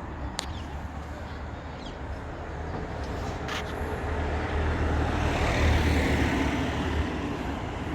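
Car engine running with a steady low hum, swelling louder for a couple of seconds in the second half, with a couple of light clicks.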